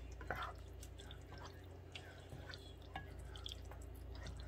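Elbow macaroni in a thick white cheese sauce being stirred with a silicone spatula in a saucepan: soft, scattered wet squelches and small clicks, over a low steady hum.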